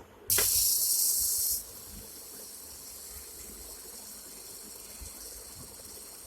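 A high-pitched hiss that starts suddenly, stays loud for about a second and a half, then drops to a fainter steady hiss.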